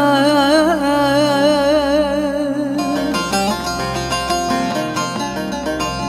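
Turkish folk song: a woman's voice holds a long, wavering note on "aman" over a steady low drone, ending about three seconds in, followed by a plucked-string instrumental passage.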